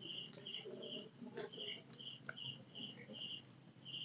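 Night insects chirping in a steady rhythm: short high chirps about two or three a second, with a second, higher-pitched series of chirps alongside, and a couple of faint clicks.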